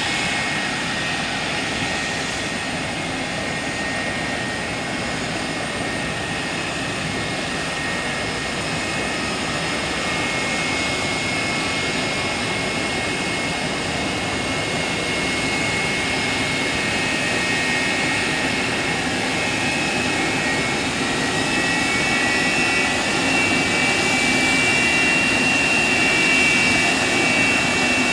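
McDonnell Douglas MD-80's rear-mounted Pratt & Whitney JT8D turbofans running at taxi power: a steady jet roar with a high whine. In the last third the whine shifts higher and grows louder as the airliner taxis in close.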